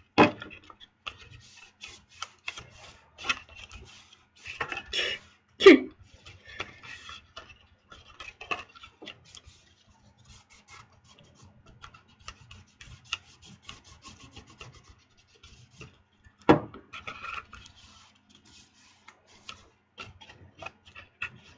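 Glittered cardstock being handled, folded and rubbed flat by hand: scattered rustling and scraping with small clicks, and three louder knocks against the table.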